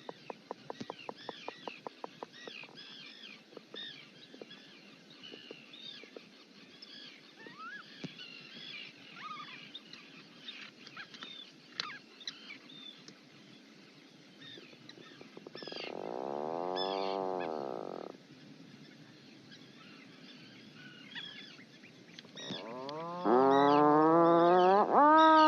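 Many short, high bird chirps going on throughout, with a quick run of clicks in the first couple of seconds. About two-thirds of the way in comes one drawn-out call that rises and falls in pitch, and near the end a louder, longer call of the same kind.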